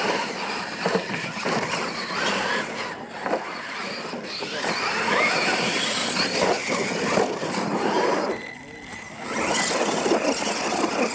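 Losi LMT radio-controlled monster trucks racing, their electric motors whining up and down in pitch as the drivers work the throttle. There is a short lull about eight and a half seconds in before the whine picks up again.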